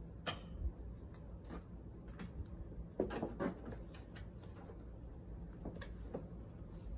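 Faint handling sounds: scattered light clicks and a few brief rustles over a steady low hum.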